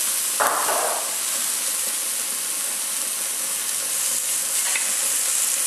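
Thin slices of marinated meat sizzling on a hot tabletop Korean barbecue grill plate, a steady hiss with a brief louder burst about half a second in.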